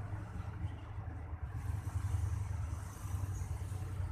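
Steady low diesel engine rumble from the locomotive of an approaching train.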